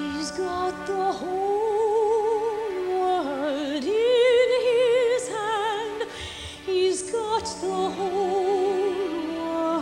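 Operatic soprano singing long held notes with a wide vibrato into a handheld microphone, over a soft instrumental accompaniment.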